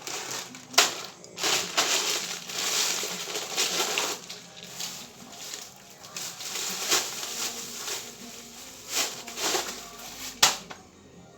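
Cat food being handled and given out: irregular crinkling and crunching noises with a few sharp knocks, the loudest about a second in and near the end.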